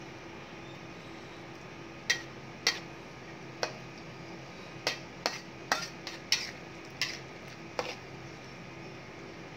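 Metal ladle knocking and clinking against a wok while stirring a thick stew: about ten sharp knocks at an uneven pace, starting about two seconds in.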